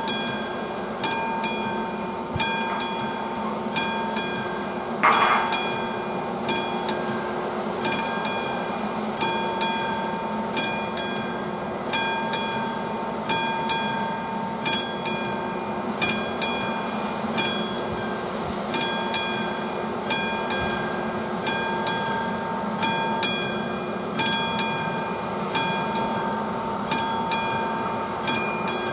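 Classic mechanical level-crossing warning bell struck in a steady rhythm, about three strokes every two seconds, each stroke ringing on into the next. About five seconds in, a brief louder noise stands out over the bell.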